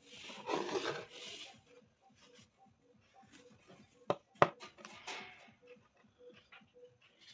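Thread rustling and rubbing as it is wound around a steel spear shaft by hand, with two sharp clicks just after four seconds in.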